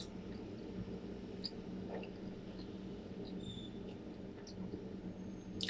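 Close-miked chewing mouth sounds: a few small wet clicks and short squeaks scattered over a steady low hum, with a sharper click near the end.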